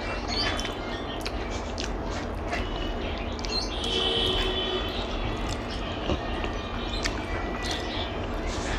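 Eating sounds: irregular short clicks and smacks of chewing and of food being handled, over a steady low background rumble.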